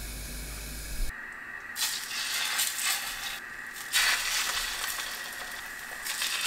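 Egg-battered cutlassfish (hairtail) fillets sizzling in hot cooking oil in a frying pan. The sizzle starts about a second in and grows louder twice as more pieces go into the pan.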